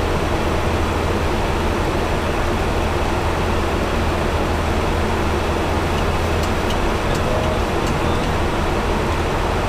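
Steady cockpit noise of a Boeing 737-900 in the climb: a constant rush of airflow over a low engine hum. A few faint clicks come about six and a half to seven seconds in.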